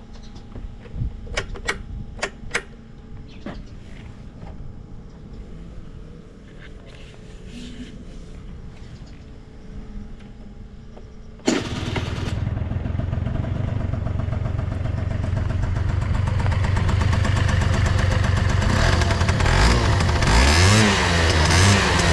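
A few sharp clicks, then about halfway through a Honda Dio Fit AF27's 50cc two-stroke scooter engine suddenly starts and runs, getting louder and being revved a few times near the end. It sounds free of abnormal noises, as the seller judges.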